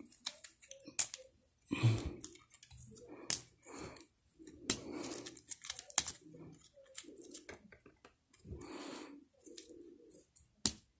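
Plastic parts of a transforming action figure clicking and rattling as they are handled and pushed into place, with a few sharp clicks spread through and soft handling noise between them.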